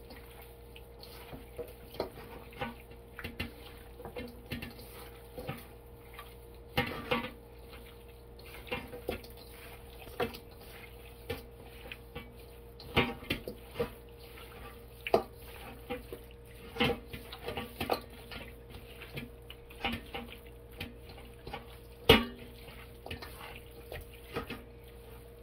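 Gloved hands mixing raw chicken pieces in marinade in a stainless steel bowl: wet handling with irregular knocks and clinks of the metal bowl, the sharpest about 22 seconds in. A faint steady hum runs underneath.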